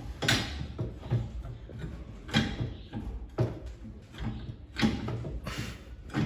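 Irregular knocks and clunks from parts being handled, about one a second.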